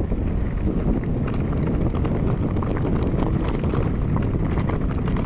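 Wind buffeting the microphone over the rattle and knocking of an e-mountain bike riding a rough, rocky trail. Many small, sharp clicks and knocks come through steadily over a constant low rumble.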